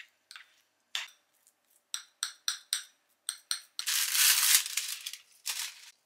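Kitchen utensil clinking against a bowl while an oat cookie mixture is being made, a run of sharp taps at one point coming about four a second. About four seconds in there is a louder burst of rustling noise lasting about a second, and a shorter one near the end.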